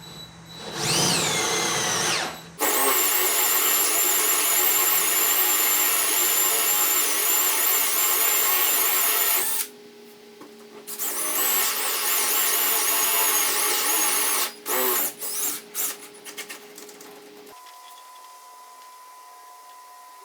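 Power drill spinning up with a rising whine, then boring a hole down through a workbench in two long runs with a short pause between. A few short bursts of the drill follow before it stops.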